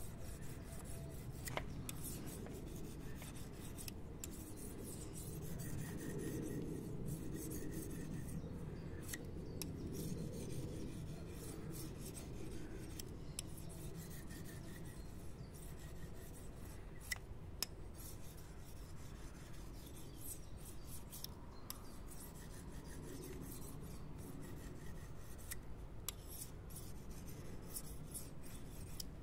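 Steel knife blade of a Mora Flex being stroked back and forth across a Fallkniven CC4 ceramic pocket sharpening stone: a continuous scraping rub of steel on ceramic, with an occasional light click.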